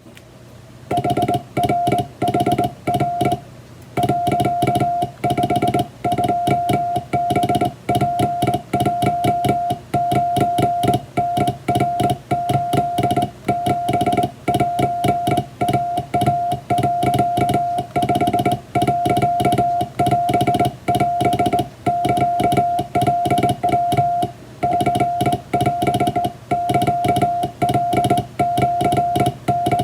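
Hand-keyed Morse code on a straight key: a steady mid-pitched beep switched on and off in dots and dashes, sending Japanese wabun telegram text. The keying starts about a second in.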